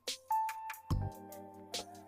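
Background music with a steady beat: low drum hits and crisp high ticks under several held notes, with a new chord coming in about a second in.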